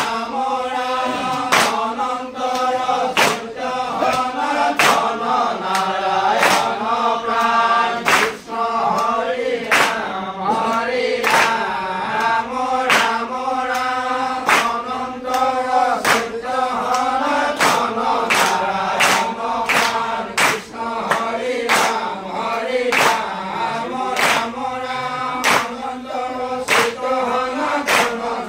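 A group of men and women singing nam-prasanga devotional chant together, keeping time with regular hand claps.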